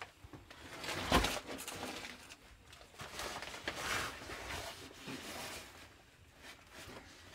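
Scuffs and rustles of someone clambering over rock, with a louder bump about a second in and softer scrapes around four and five seconds.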